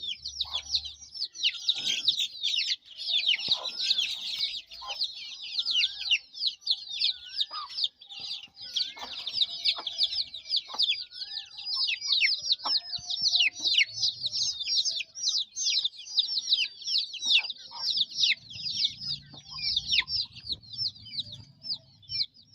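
A flock of chickens calling all at once: a constant overlapping chorus of high-pitched peeps, with scattered lower calls among them.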